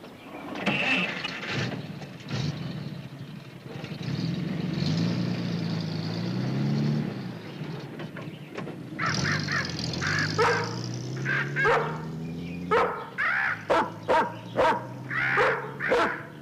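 A pickup truck's engine running and revving, its pitch rising as the truck pulls away. In the second half, dogs, a rough collie and a yellow dog, bark over and over.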